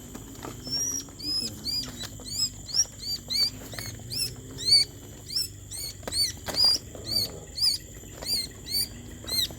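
Small birds chirping in a fast run of short, high, arching calls, about two to three a second, with a few sharp clicks among them.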